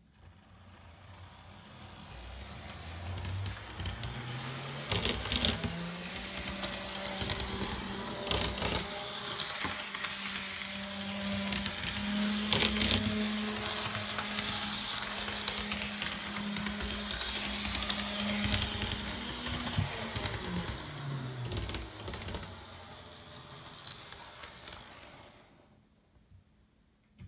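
Electric motor of a Life-Like N scale EMD E7 model diesel locomotive running on track: its whine rises in pitch as the model speeds up, holds steady for a long stretch, then falls away as it slows and stops shortly before the end. A few clicks from the wheels are heard along the way.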